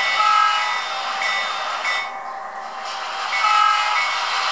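Train sound with the model GP38-2 diesel locomotive moving slowly: a steady hiss with short tones coming and going, thin and without bass. The hiss drops away briefly a little past halfway and then returns.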